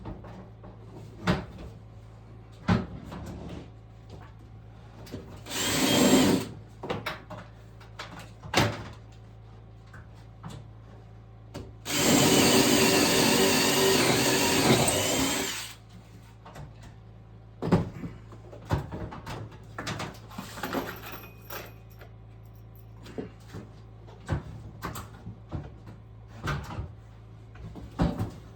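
Power drill running in two bursts: a short one about six seconds in and a longer, steady one of about three and a half seconds halfway through. Scattered knocks and clicks of handling tools and material come between them.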